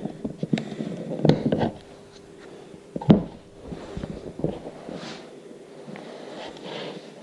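A Garmin GPS battery pack being pulled out of its plastic charging cradle and set down on a bench: a series of plastic clicks and knocks, the loudest about three seconds in, followed by softer handling rustles.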